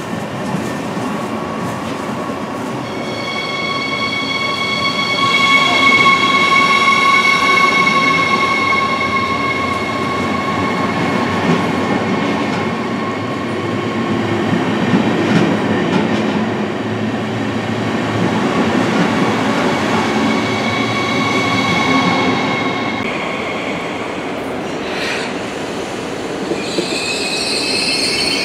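Double-deck electric multiple unit moving along the platform: its traction inverter gives out several steady whining tones over the rumble of wheels on rail. Near the end another double-deck train's inverter whine comes in, rising in pitch.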